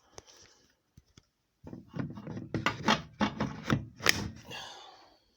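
Ferrex cordless circular saw being handled: two light clicks, then a run of knocks and clicks for about three seconds, ending in a brief rubbing slide. The motor is not running.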